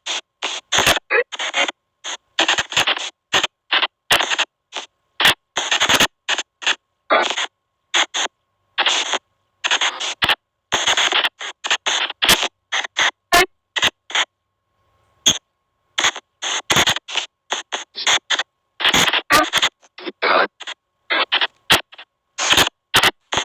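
SP White Noise Box ghost-box app playing rapid chopped bursts of white noise and radio-like fragments, a few a second, with dead silence between them. There is a longer lull about halfway through.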